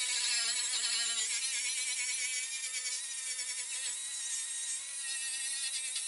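Cordless 18V angle grinder running against steel bodywork, a high-pitched whine that wavers in pitch as the load changes, grinding off old paint and rust.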